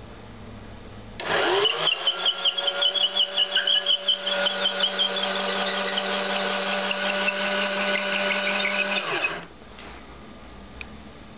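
Electric drill motor spinning up with a rising whine about a second in, then running steadily, turning a threaded lead screw, with a rhythmic rattle of roughly four beats a second over its first few seconds. It stops about eight seconds later, and a faint click follows.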